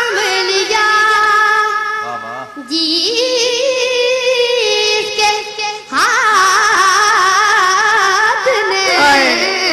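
A child's high voice singing a naat, with long held notes that waver in pitch and ornamented melodic runs. The singing dips briefly about two seconds in and again near six seconds.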